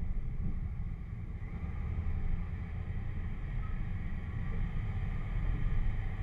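Off-road 4x4's engine running with a steady low rumble as it drives slowly along a dirt trail, heard from a camera mounted on the vehicle.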